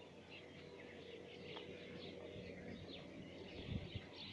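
Faint outdoor ambience of small birds chirping: short, irregular chirps scattered throughout. Two low thumps come near the end.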